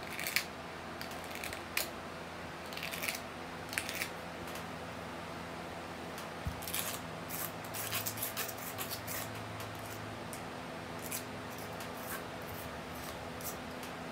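Short, scratchy strokes of a hand rubbing and brushing across a resin-coated guitar body to clear sanding dust, coming in clusters of a second or less, over a faint steady hum.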